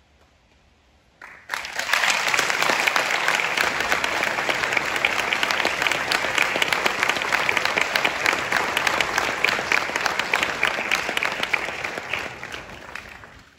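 Audience applauding. A hushed pause lasts about a second and a half, then the clapping breaks out all at once, holds steady, and dies away near the end.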